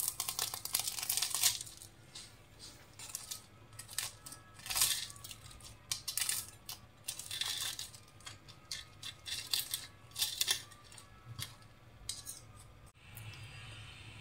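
Knife and fork cutting through a crisp, flaky fried pastry on a ceramic plate: the layers crackle and crunch at irregular moments, with the cutlery scraping and clinking on the plate.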